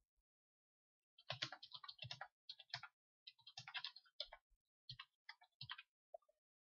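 Typing on a computer keyboard: quick runs of key clicks starting about a second in, in short groups with brief pauses between them, stopping near the end.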